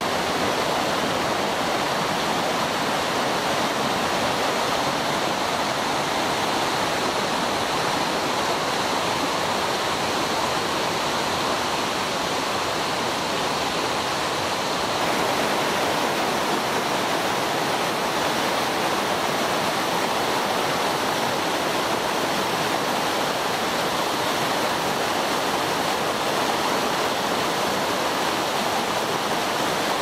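Mountain stream rapids: water rushing steadily over boulders and small cascades. The sound shifts slightly about halfway through, as a different stretch of rapids takes over.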